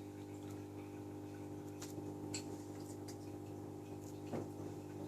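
Steady low electrical hum with a few faint ticks, and a brief, quiet cat meow near the end.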